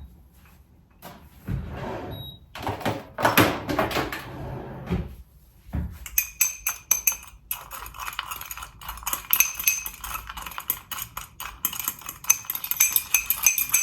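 Some knocking and rustling, then from about halfway a quick run of clinks: a metal spoon stirring against a cup, working lumps of solid sugar into hot water.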